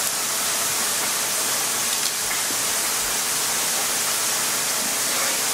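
A steady, even hiss, brightest in the high treble, with no change in level.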